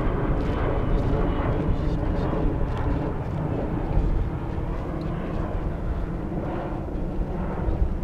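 Engine noise of a firefighting air tanker flying overhead, a steady drone under strong low wind rumble on the microphone.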